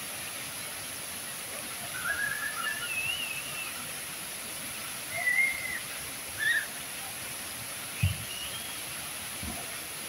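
Water pouring steadily from a circular curtain fountain into its pool. A few short high-pitched calls sound over it, the loudest about five and six and a half seconds in. A brief low thump comes about eight seconds in.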